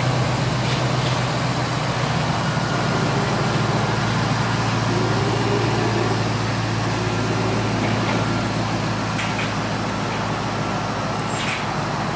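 1999 Ford F-250 pickup's engine idling steadily, a constant low hum with no revving.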